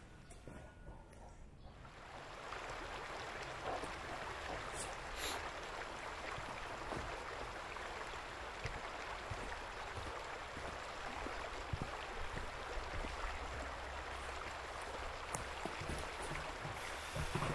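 Steady rushing wind outdoors with a low rumble under it, starting up about two seconds in after a quieter opening, with faint rustles and a few soft ticks.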